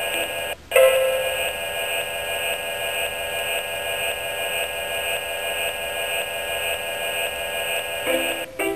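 Synthesized electronic sound from the Star7 handheld: a held chord of many steady high tones. It drops out for a moment about half a second in, then comes back louder, and ends with a few short stepped notes.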